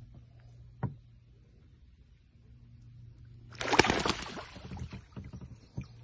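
A knock against a small boat's hull. Then, about three and a half seconds in, a short burst of water splashing and sloshing as a released hen wood duck splashes away from the boat. Another knock comes near the end.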